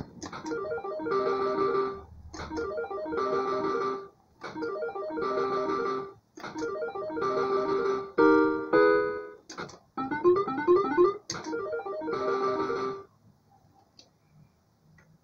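Igrosoft Fruit Cocktail 2 video slot machine playing its electronic reel-spin jingle over and over: a quick run of beeping notes with each spin, short sharp clicks between spins, and a different short run of notes about eight seconds in. The machine goes quiet near the end.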